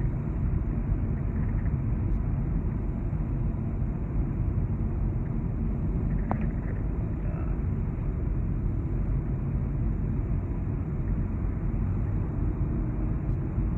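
Steady road and engine noise heard from inside a car cabin at highway speed, an even low rumble.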